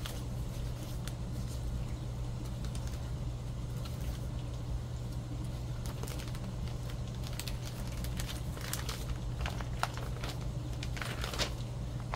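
Paper rustling as a journal's pages are flipped and a paper tea-bag envelope is handled, the rustles busier and louder in the last few seconds, over a steady low hum.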